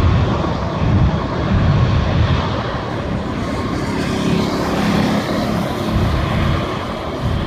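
Steady road noise of a car driving along a road, with other cars passing close by.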